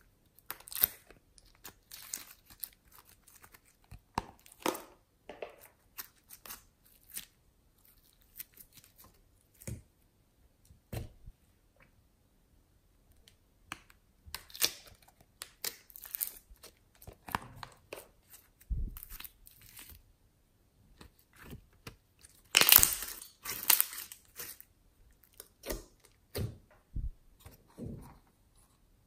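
Hands handling small plastic slime containers: scattered sharp clicks and taps with short stretches of handling noise, and a denser, louder run of it for about two seconds about three quarters of the way through.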